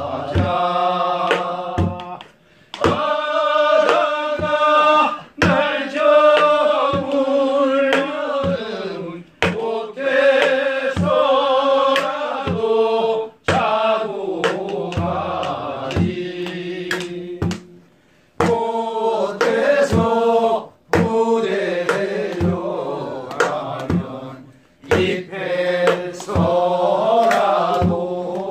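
Men singing a Korean folk song (minyo) in a chant-like style, accompanied by a janggu drum struck in sharp strokes. The singing breaks off briefly between phrases.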